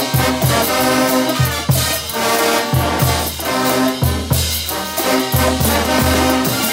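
Brass band playing live: trumpets, trombones, baritone horns and tubas in full chords over bass drum, snare drums, cymbals and congas, with a steady beat and a repeating tuba bass note.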